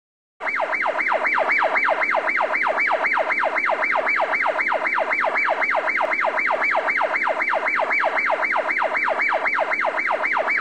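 Siren with a rapid falling sweep, repeating steadily about three and a half times a second; it starts suddenly about half a second in.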